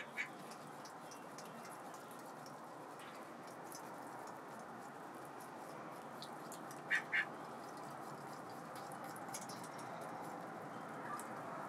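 White domestic ducks preening, with faint ticking from bills working through feathers over a steady low hiss, and two short quacks in quick succession about seven seconds in.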